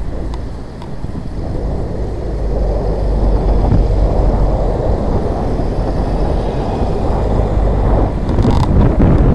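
Wind rushing over the microphone during a ride, mixed with road and traffic noise. It gets louder about two to three seconds in, with a brief clatter near the end.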